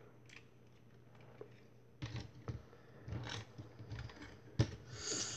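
Plastic action figure being handled and posed: faint, irregular clicks and light knocks of its plastic limbs, joints and weapons under the fingers, starting about two seconds in.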